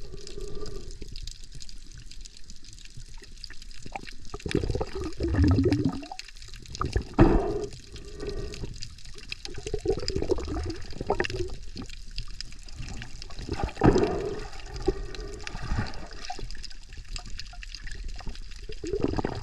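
Water sloshing and gurgling as heard underwater, muffled and rising and falling in irregular surges as the swimmer moves through the water.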